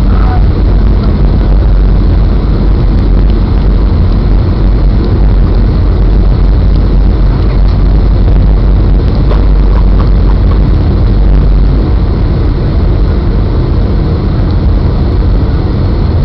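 Steady engine and airflow roar heard inside the cabin of a Boeing 757 on final approach, flaps extended.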